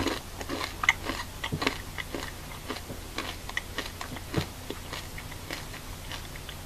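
A person crunching and chewing a chili nut M&M close to the microphone, with irregular crisp crunches.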